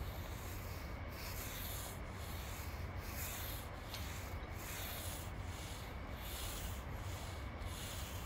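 Paint roller on an extension pole rolling sealer over a smooth concrete floor: a rhythmic swishing of back-and-forth strokes, roughly one a second, over a steady low hum.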